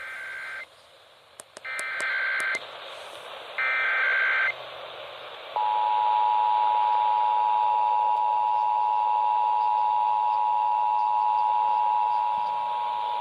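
Emergency Alert System test coming from a broadcast receiver. Three short bursts of warbling SAME header data tones come about a second or two apart, with a few sharp clicks among them. About five and a half seconds in, the steady two-tone EAS attention signal starts and holds.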